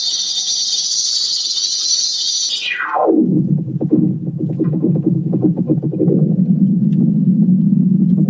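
Synthesized 'sky quake' sound effect, made to pass for a strange noise from the sky. A high hissing tone sweeps steeply down about three seconds in to a low drone, which then holds.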